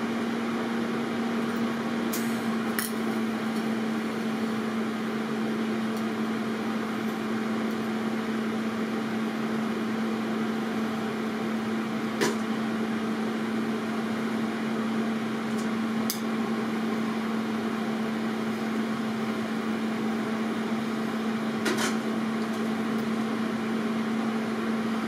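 TIG welding: a steady electrical hum with a hiss under it, broken by a few short sharp clicks.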